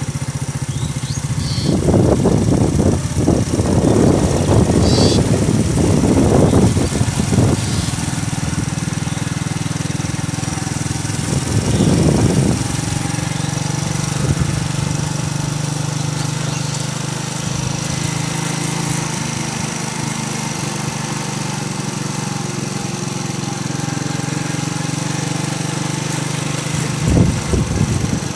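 Motorcycle engine running steadily while riding, with wind hiss and louder rushing spells a couple of seconds in, again near twelve seconds and near the end.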